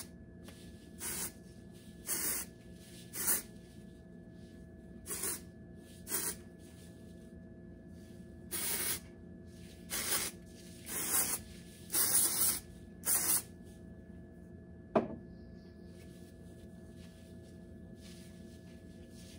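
Keratherapy aerosol hair-product can sprayed in about ten short hisses, each under a second, a couple a little longer, with pauses between. A single sharp click comes about three-quarters of the way through.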